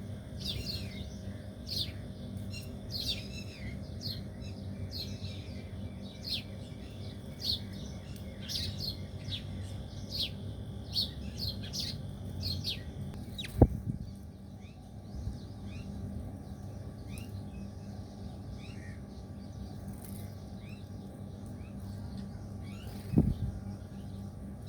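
Small birds chirping, a run of short, sharp, quickly repeated chirps that thins out and grows fainter past the middle. Two sharp knocks stand out, about halfway through and near the end, over a steady low hum.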